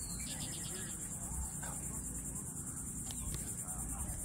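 Steady, high-pitched chorus of field insects, a fast even pulsing chirr, with a low rumble underneath.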